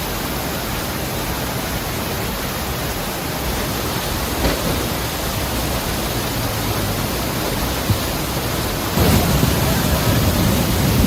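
Floodwater rushing steadily past a debris-blocked bridge, a dense, even wash of noise. A short knock comes about 8 seconds in, and the rush grows louder about 9 seconds in.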